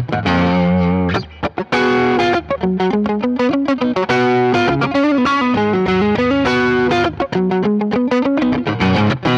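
Thinline Telecaster-style electric guitar played on its neck pickup through an amplifier, a run of chords and single-note phrases with a few bent notes, broken by short pauses between phrases.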